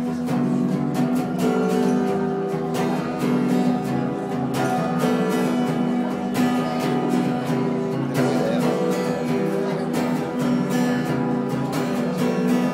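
Acoustic guitar strummed steadily in an instrumental passage of a song, with no singing.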